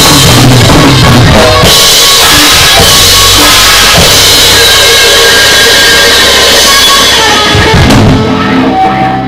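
Acoustic drum kit played hard with a band: bass drum, snare and crashing Sabian cymbals over sustained instrument notes. About eight seconds in the cymbals stop and held notes ring on as the song ends.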